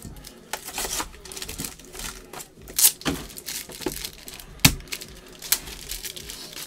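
Crinkling plastic wrapping and small clicks of cardboard as a trading-card box is opened, with two sharper snaps about three seconds and nearly five seconds in.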